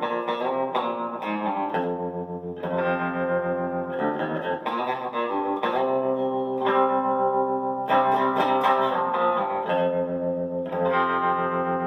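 Harley Benton TE-30 Tele-style electric guitar played clean, with a run of chords and arpeggios struck and left ringing. Tremolo, compressor and reverb are on.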